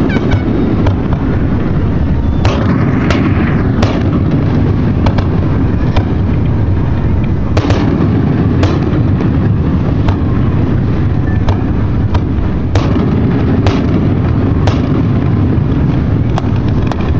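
Aerial fireworks shells going off in an irregular series of sharp bangs, about one a second, over a continuous low rumble.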